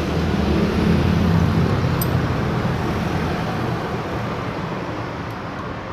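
A motor vehicle engine running in the background with a steady hum, loudest in the first couple of seconds and then slowly fading away, with one small metallic click about two seconds in.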